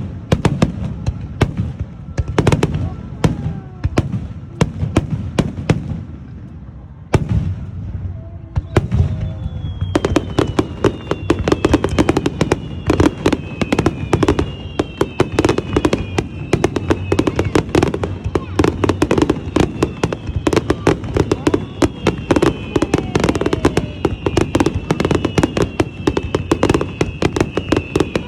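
Fireworks going off as a string of loud bangs and crackles. The bangs ease off briefly about six seconds in, then build to a dense, rapid barrage of crackling bursts with many falling whistles.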